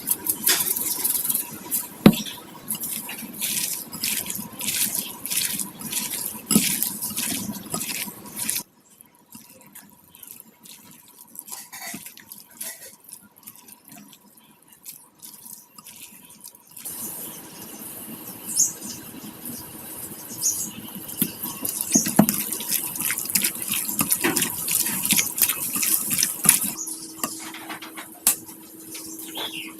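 Water running and splashing in a kitchen sink, with edits: it drops abruptly to a much quieter passage about a third of the way in, then comes back louder past the halfway point.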